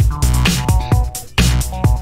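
Electronic house track playing: a steady kick drum about twice a second over deep bass, with held melodic tones on top.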